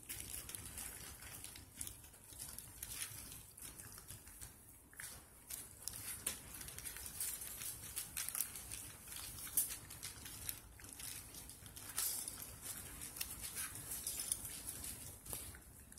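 Five-week-old puppies scrabbling and shuffling about on crumpled paper and puppy pads, a steady run of irregular rustles, crinkles and light paw taps.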